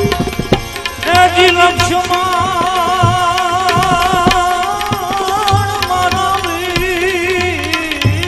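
Gujarati devotional bhajan music: tabla keeping a rhythm with regular deep strokes, and from about a second in a long melodic line held with steady vibrato over it.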